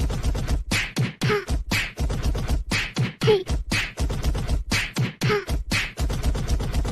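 Fast beatbox-style beat of sharp mouth-made percussive strokes, about four a second. A short bending pitched sound comes back about once a second, like a looped rhythm.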